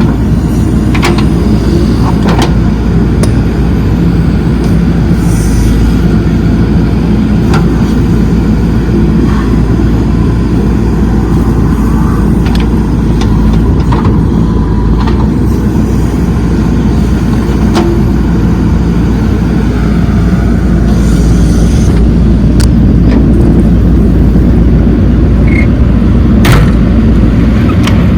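Heavy diesel machinery running steadily with a loud low rumble, with a few brief sharp knocks here and there.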